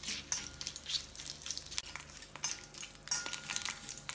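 Whole spices sizzling in hot oil while a metal spoon stirs them in a cast-iron kadai, the spoon scraping and clinking against the pan again and again. This is whole spices being tempered in oil.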